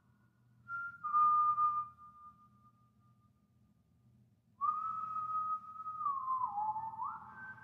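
A person whistling a slow tune: long held notes with slides and steps between them, and a pause of about two seconds in the middle.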